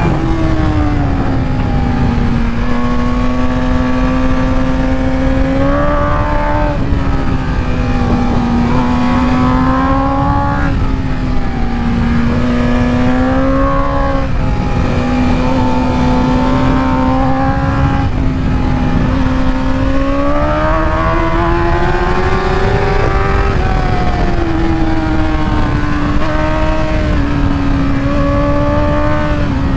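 Sport motorcycle engine running at high revs while riding. Its note swells and eases with the throttle and climbs for a few seconds before dropping back, over a constant heavy low rushing noise.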